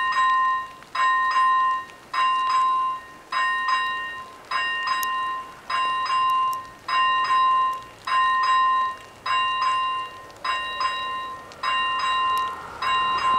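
Warning bells of an AŽD 97 level crossing ringing in a steady repeating pattern, a quick cluster of strikes about every second and a bit, signalling that a train is due. Near the end a rising rushing noise comes in beneath the bells as the train approaches.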